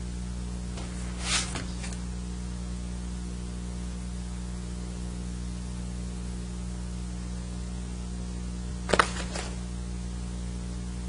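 Steady electrical mains hum on the meeting-room microphone line, with a brief rustle about a second in and a sharp knock near the end.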